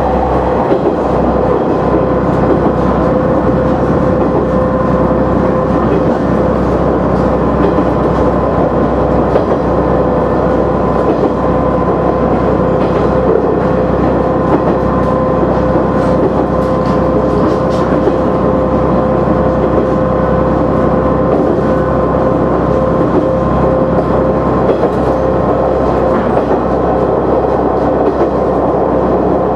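KiHa 100 diesel railcar running along the line, heard from inside the car: a steady engine and running drone with a steady whine, and the wheels clicking now and then over the rail joints.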